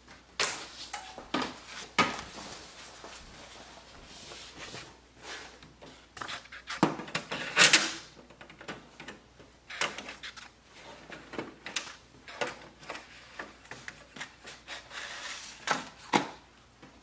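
Paper being loaded into the front paper tray of a Pantum M6559NW laser printer: the plastic paper guides sliding and clicking, and a stack of paper rustling and scraping as it is pushed in. The sounds are irregular, with the loudest rustle about halfway through.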